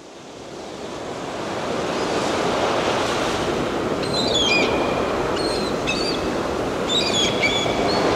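Sea surf washing steadily, fading in over the first couple of seconds, with birds calling in short chirps three times from about halfway through.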